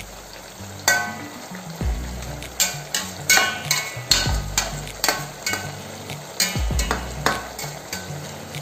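Perforated steel skimmer stirring jackfruit strips deep-frying in oil in a steel pot, knocking and scraping against the pot in a run of sharp clinks from about a second in, over the steady sizzle of the frying oil. Background music with a deep beat runs underneath.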